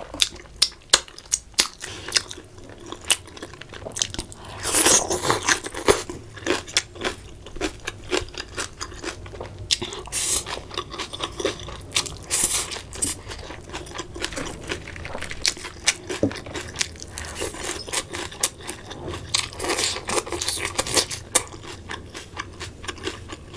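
Crispy fried chicken bitten and chewed close to the microphone: repeated wet crunches and chewing, with louder crunchy bites about 5, 10, 12 and 20 seconds in.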